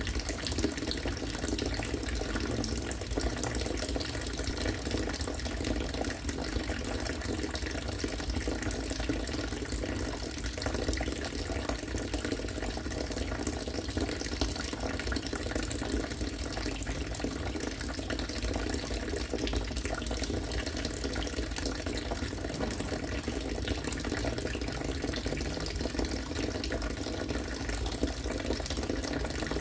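Harvested rainwater falling in a steady, unbroken stream and splashing into water.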